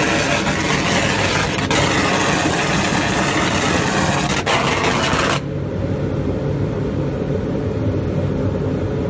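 Industrial laser engraving machine burning a design into a chalkboard panel at high beam speed: a loud, steady hiss with two brief breaks, which cuts off sharply about five seconds in as the beam stops. The machine's low, steady hum carries on underneath.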